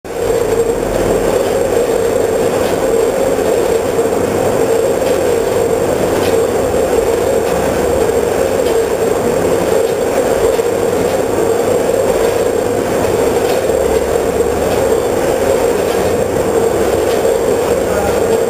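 10-head multihead weigher running with sweets: a loud, steady buzzing hum from its vibrating feed pans, with faint irregular clicks and rattling over it.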